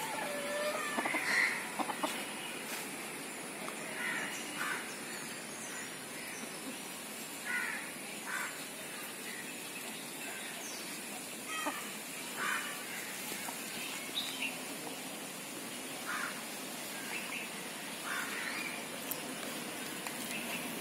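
Chickens foraging: a white chicken pecking at a half coconut shell on bare earth, with scattered short taps and brief bird calls every second or two over a steady high-pitched hiss.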